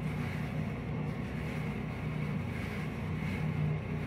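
Steady low hum and hiss of a room ventilation fan.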